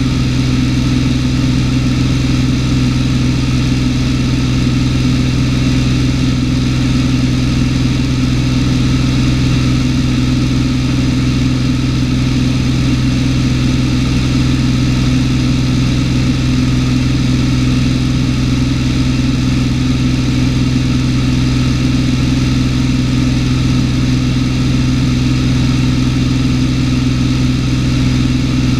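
Cessna 210's six-cylinder piston engine and propeller running in steady flight, a loud unchanging drone heard from inside the cabin.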